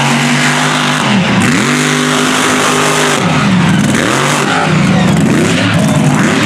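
Mega truck engine revving hard at high throttle. Its pitch drops and climbs back up several times, quickly one after another in the second half, as the throttle is lifted and reapplied.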